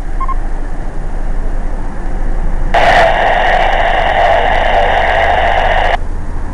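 Two-way ham radio receiving a burst of harsh static for about three seconds, starting and cutting off suddenly, as a station keys up through interference and no voice comes through. Two quick beeps sound near the start.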